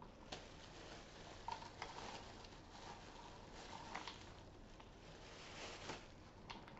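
Faint crinkling of a clear plastic bag and the light patter of mixed nuts tipped from it into a measuring cup, with a few scattered small clicks.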